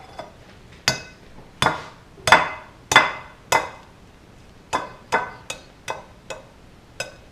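An egg tapped again and again against the edge of a mixing bowl to crack it: about a dozen light, clinking knocks, roughly two a second.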